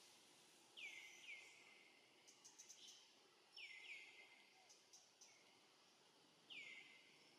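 Faint bird chirps, each a short downward sweep, in two quick pairs and then once more near the end, over quiet forest background with a few soft clicks.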